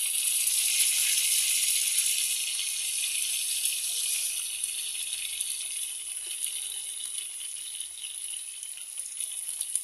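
Food frying in hot oil in a metal pan: a steady, crackling sizzle that eases off a little over the seconds.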